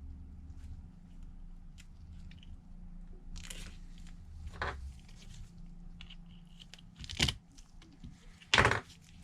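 Adhesive tape being pulled, pressed on and torn: four short crackling, crunching noises, the last near the end the loudest, over a low steady hum.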